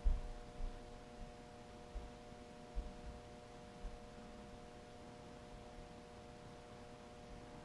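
Steady low background hum made of a few fixed pitches, with a handful of soft low knocks in the first four seconds as the black rubber-jacketed power cord is handled on a padded bench.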